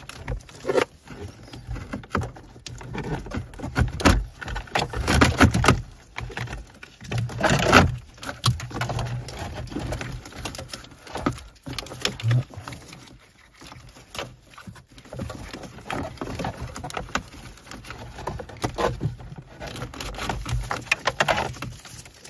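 Cables being fed and pulled through the plastic dashboard and glovebox cavity: irregular rustling, scraping and light clicks of wire and hands against plastic trim. It is louder for a few seconds about four to eight seconds in and again near the end.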